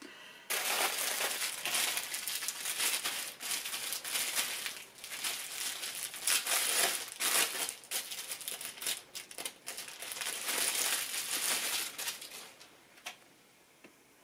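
Packaging crinkling and rustling as an item is unwrapped by hand. The rustling runs for about twelve seconds, then dies away near the end.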